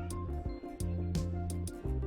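Background music: a track with held bass notes, a repeating melody and regular percussion hits.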